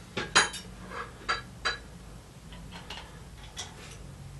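Metal fork parts clinking and knocking as they are handled and set down: a few short light clinks, most in the first two seconds and one more later.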